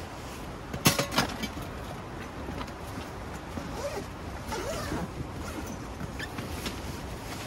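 Camping cookware and a storage box's clear plastic lid being handled: two sharp clacks about a second in, then rustling and handling noises over a steady wind noise.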